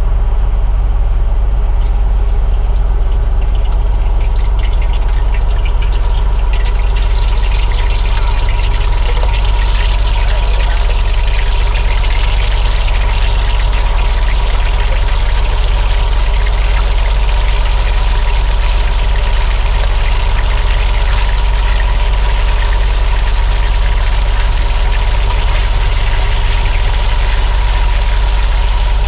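Chicken wings frying in hot oil, a dense crackling sizzle that starts about seven seconds in, over the steady drone of the fishing trawler's engine running.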